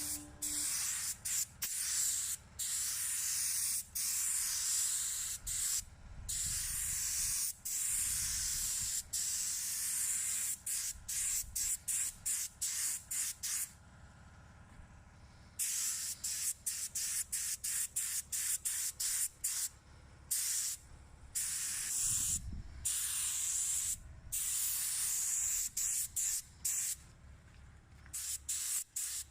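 Air spray gun hissing in many short and long bursts as the trigger is pulled and released, with a few longer pauses between passes, spraying a protective coating.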